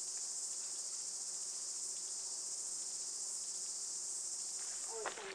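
Dense, steady insect chorus: an unbroken, high-pitched buzz.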